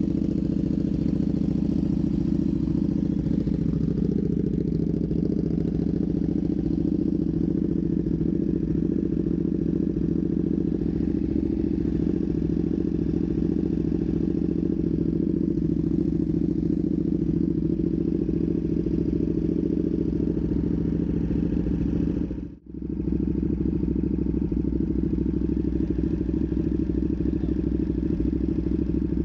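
Ducati Panigale V2's 955 cc Superquadro V-twin idling steadily through a full titanium Vandemon exhaust, warming up after a cold start. The sound cuts out for a split second about two-thirds of the way through.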